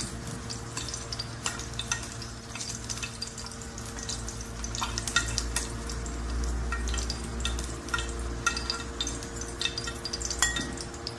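Peeled hard-boiled eggs sizzling in hot oil in a frying pan, a dense crackle of spattering oil, with a spatula knocking against the pan as the browned eggs are lifted out.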